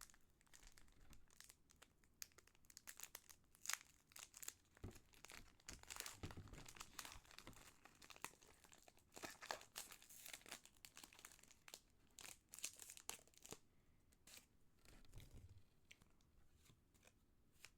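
Faint crinkling and tearing of a Pokémon booster pack's foil wrapper, with irregular crackles and rustles as the pack is torn open and the cards are handled.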